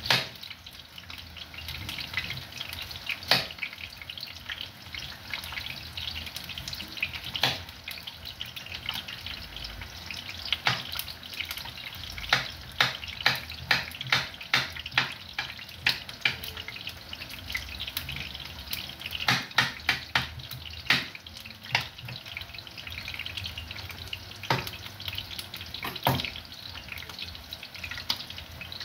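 A knife chops onion on a board, making sharp knocks. A few come scattered at first, then quicker runs of about two a second through the middle. A steady frying hiss runs underneath.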